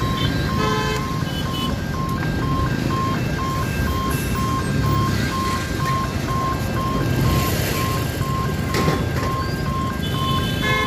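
Level-crossing warning signal sounding a rapid, evenly spaced electronic beep as the boom barriers close, over the running engines of road traffic crossing the tracks. A short vehicle horn toot comes about a second in.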